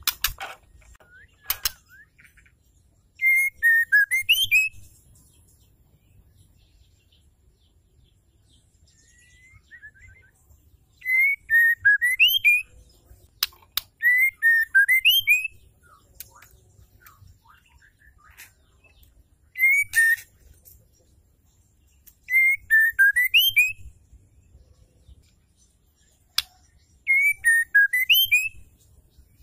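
Female white-rumped shama calling: a short whistled phrase that dips and then rises, with rapid high ticking over it, repeated six times a few seconds apart. A few sharp clicks fall between the phrases. This female call is used to stir male shamas into singing.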